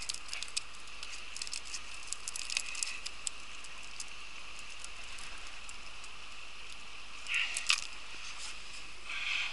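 Nylon cast net being shaken out by hand: its weighted edge clicks and rattles and small fish patter onto the stones, with a louder cluster of clicks about three quarters of the way through. The steady murmur of a small stream runs underneath.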